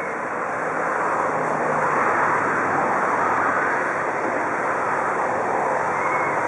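Steady rushing rumble of the depot turntable slowly turning with the DR Class 44 steam locomotive on it, growing a little louder about a second in and then holding.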